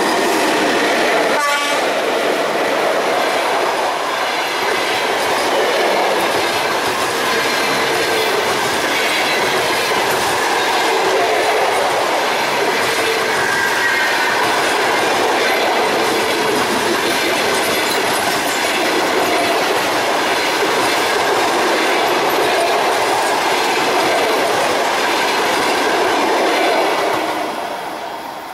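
Passenger train hauled by a ChS7 DC electric locomotive passing close by: a loud, steady rolling rumble and rattle of coach wheels clattering over the rail joints. It fades near the end as the last coach clears.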